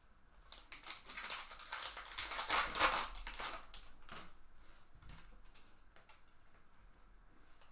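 A 2020 Topps Holiday baseball card pack's wrapper being torn open and crinkled by hand, loudest about two to three seconds in, followed by faint rustles and clicks.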